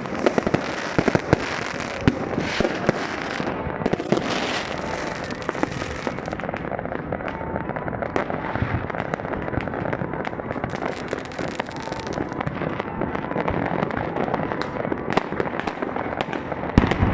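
Fireworks and firecrackers going off in many places at once: a constant crackle of irregular bangs and pops, with one louder bang near the end.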